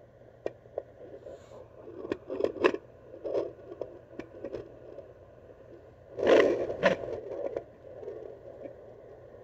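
Handheld fetal doppler probe scraping and crackling as it is moved over a pregnant dog's belly: irregular clicks and scratches, with a louder scrape about six seconds in.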